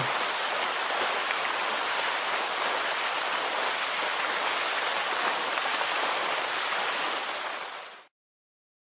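Steady rushing noise, like running water or rain, with no tune or beat; it fades out near the end and cuts to silence.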